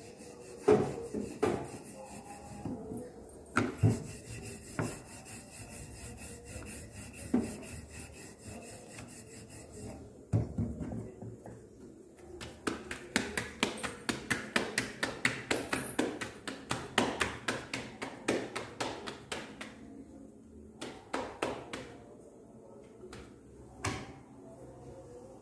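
Rolling pin working paratha dough on a round metal rolling board, with rubbing strokes and light knocks of the pin. In the middle there is a stretch of quick, rhythmic pats as the dough is shaped between the hands.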